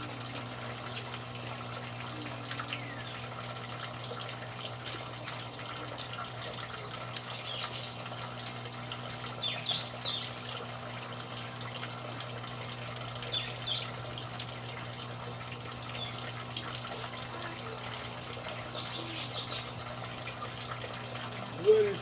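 Steady background noise with a constant low hum, and short faint high chirps now and then.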